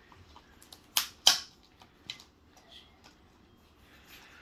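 Sharp clicks and snaps from slime being pressed into a cup: two loud ones close together about a second in, with a few fainter ones around them.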